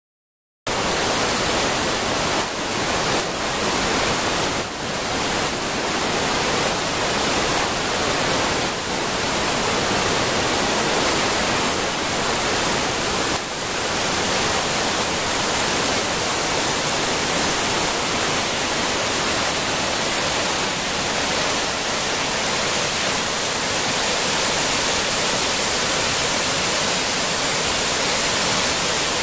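The Cahabón River's whitewater rushing over boulders and plunging into the cave where the river runs underground, a loud, steady rush of water. It starts suddenly about half a second in.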